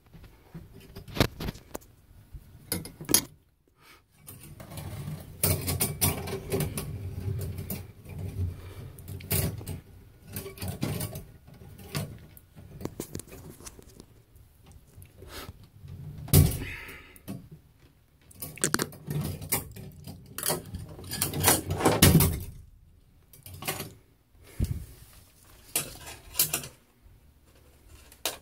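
Wire clothes hanger scraping and clicking against the inside of a bathtub drain opening as it is worked about to fish out a drain plug, irregular with short pauses.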